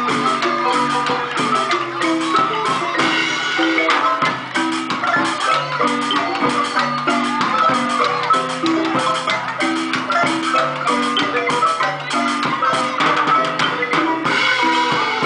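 Marimba music playing with a steady, regular rhythm of repeated notes.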